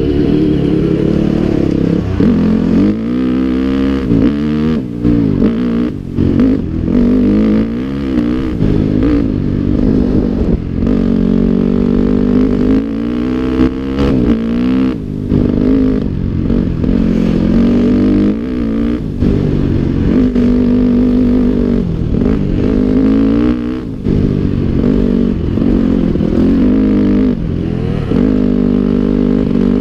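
Dirt bike engine under way on a rough trail, its pitch rising and falling over and over as the throttle opens and closes, with brief drops every few seconds. Clicks and rattles from the bike over rocky ground.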